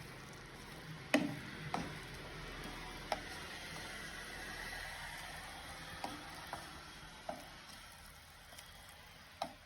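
Spice paste and rasam powder frying in ghee in a pan with a steady sizzle, a spoon knocking against the pan a handful of times as it is stirred. The sizzle dies down over the last couple of seconds.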